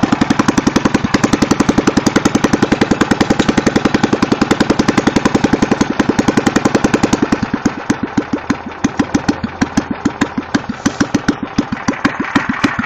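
Single-cylinder 5 hp Tecumseh engine on a Jacobson Imperial 26 snowblower, running loud with a rusted-out muffler: a fast train of sharp exhaust beats. About halfway through the firing turns uneven and loping, skipping beats, as the engine refuses to settle into an idle. The owner puts the rough running down to the ignition timing being slightly off.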